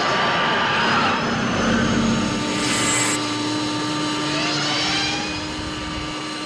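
DeLorean time-machine car engine revving hard as the car speeds past, with a short hissing burst about three seconds in and a thin rising whine a little later.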